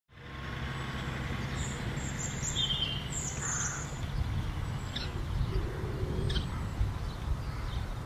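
Low rumble of an SUV towing a caravan across a grass field, with birds chirping several times over it.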